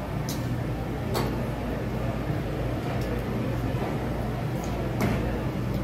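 Steady low background hum with a few light clicks and knocks, the loudest about five seconds in.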